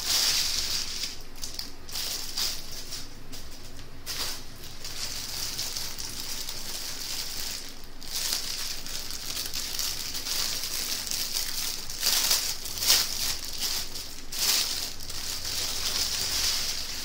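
Clear plastic bags crinkling and rustling as a bag of small sealed plastic packets of diamond painting drills is shaken and emptied by hand, the packets sliding out onto a table. There are louder crackles at the start and again about three-quarters of the way through.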